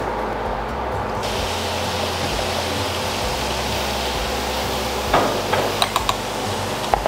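A steady hiss that brightens about a second in. In the last two seconds come several sharp clinks of a utensil against a bowl as flour, salt and pepper are stirred together.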